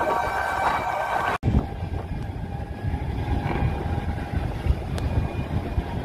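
Low rumble of wind on the microphone and a motor running on the harbour water. It follows a short stretch of street noise with a steady whine that cuts off abruptly about a second and a half in.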